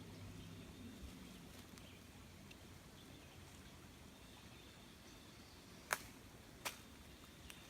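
Quiet woodland near silence, broken near the end by two sharp, close knocks less than a second apart, with a fainter third click just after.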